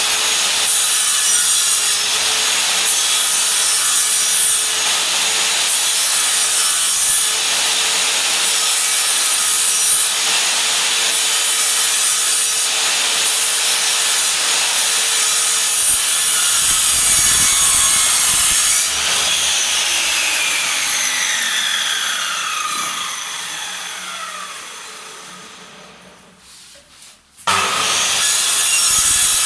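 Power miter saw running loud and sawing through wood, then switched off about two-thirds through, its blade whine falling in pitch as it spins down, before the saw starts up again abruptly near the end.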